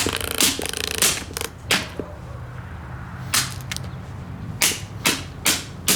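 Repeated sharp blows on the cheap, brittle plastic housing of a Windmere table fan as it is smashed: about ten cracking strikes at an uneven pace, with a low hum underneath.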